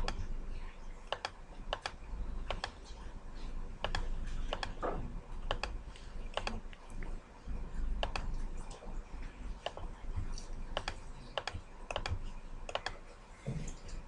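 Scattered sharp clicks of a computer mouse and keys, about one or two a second, over a low steady hum.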